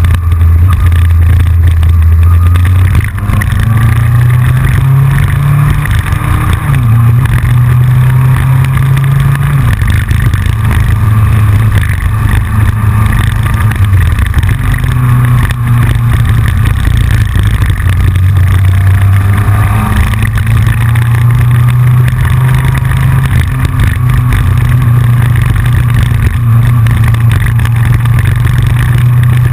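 Yamaha FJR1300 motorcycle's inline-four engine running at road speed, its pitch shifting up and down several times with throttle and gear changes. A clicking rattle runs through it from the camera's loose fairing mount.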